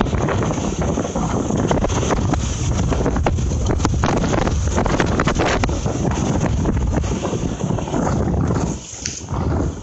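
Storm wind gusting hard and buffeting the microphone with a deep rumble. It eases briefly about nine seconds in.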